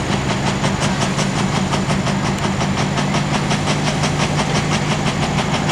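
Diesel engine of a Ford pulling vehicle running steadily, with a fast, even beat.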